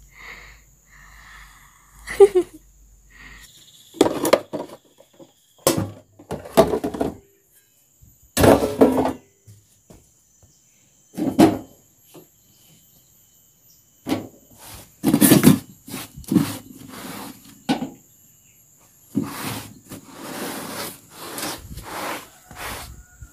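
Household things being handled and moved during tidying: irregular knocks, thumps and scraping, each short and a few seconds apart. A steady high-pitched insect buzz runs underneath.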